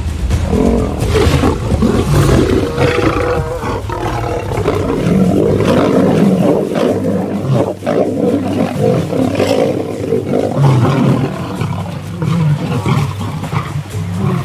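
Lions snarling and roaring in a fight, one growl after another: a black-maned pride male charging at younger lions to drive them off.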